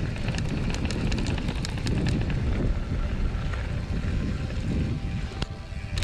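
Wind rushing over an action camera's microphone on a GT Fury downhill mountain bike rolling fast down a loose gravel trail. Tyres run over the dirt, and quick clicks and rattles come from the bike and flicked stones, thickest in the first couple of seconds.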